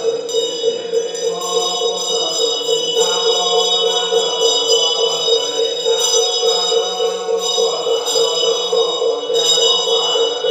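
Liam keng, Chinese temple scripture chanting: several voices chanting in a steady stream over continuous metallic ringing and a fast, fluttering pulse.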